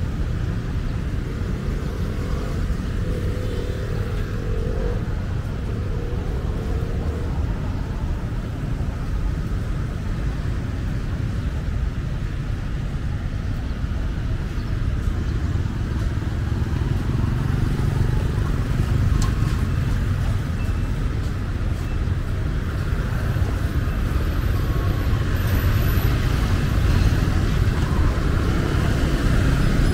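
City street traffic: cars and motorbikes passing over a steady low rumble, with faint voices now and then. It grows somewhat louder in the second half.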